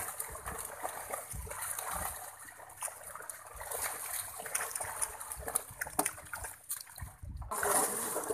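Fish thrashing and splashing in a seine net hauled tight in shallow pond water, an irregular churning of spray and slaps, louder near the end.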